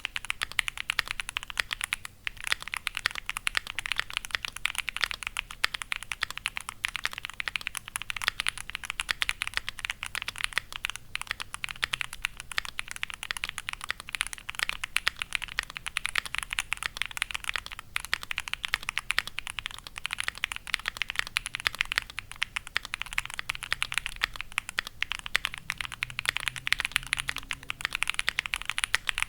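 Fast, continuous typing on a Bakeneko65 mechanical keyboard with Gateron Baby Kangaroo tactile switches on a carbon-fibre plate, GMK keycaps, and foam, polyfill and tape-mod dampening: a dense stream of keystrokes with a brief pause about two seconds in.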